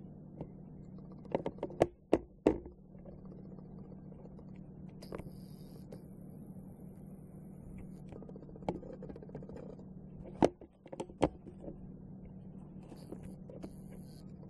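Handling noise: a few sharp knocks and clicks in two clusters, about two seconds in and again about ten seconds in, over a steady low hum.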